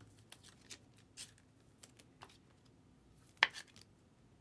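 Topps Chrome baseball cards and their packs being handled: a string of short clicks and rustles, with one sharper snap about three and a half seconds in.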